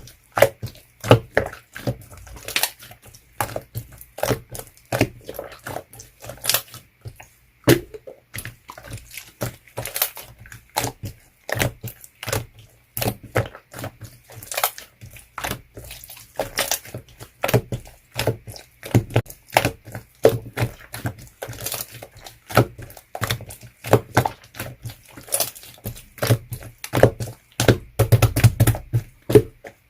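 Clear slime being pressed and worked, making irregular sharp pops and clicks several times a second.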